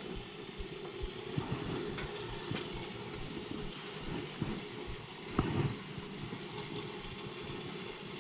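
Hot-water heating system running after a refill: a steady hum from the boiler and its circulator, with scattered small clicks and one louder knock about five and a half seconds in.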